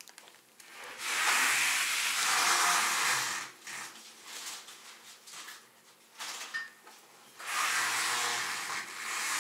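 Plastic shopping bag rustling as groceries are taken out of it: two long spells of several seconds each, with a few light handling clicks in between.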